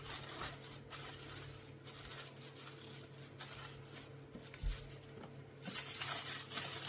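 Aluminium foil and kitchen towel crinkling and crackling as a fried green plantain wrapped in them is pressed flat. The crinkling grows louder and denser near the end, over a steady low hum.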